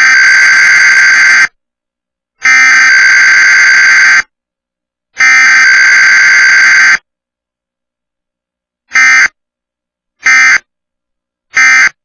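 Emergency Alert System SAME digital data bursts for a Required Weekly Test. Three long, loud buzzing bursts of about a second and a half to two seconds each, with short silent gaps, are followed in the second half by three short bursts about a second and a half apart: the repeated alert header, then the end-of-message code.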